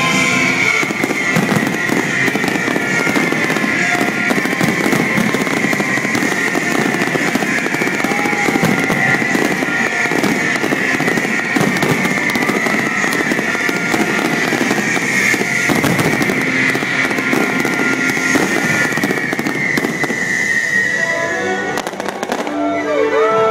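A dense fireworks barrage: continuous crackling and rapid bangs from many bursting shells, over the show's music playing on loudspeakers. A high tone slides slowly downward through most of it, fading about three quarters of the way through, and voices come in near the end.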